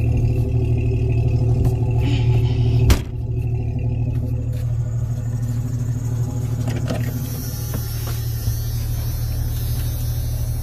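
A vehicle engine running steadily with a low hum. There is a sharp knock about three seconds in, after which it runs a little quieter.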